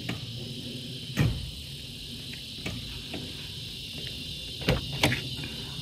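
Steady high-pitched insect drone, with a few sharp knocks: the loudest about a second in and two close together near the end.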